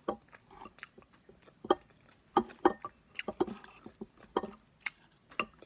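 A person chewing a mouthful of chili and corn chips close to the microphone: irregular soft crunches and wet mouth clicks.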